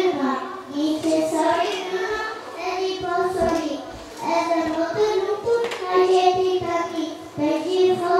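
Young children singing a song, in held, sung notes.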